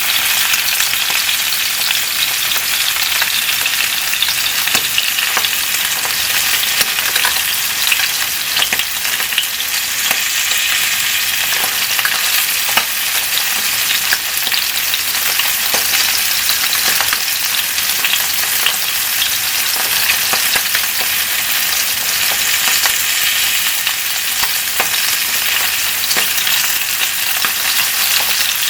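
Flounder frying: a steady sizzle with many small crackles and pops throughout.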